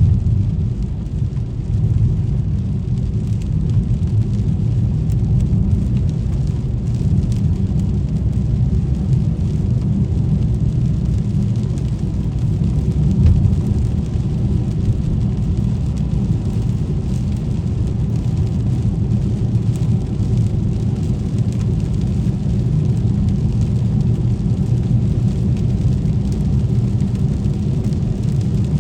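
Steady low rumble of a car driving on rain-wet streets, with a faint hiss and light ticks of rain.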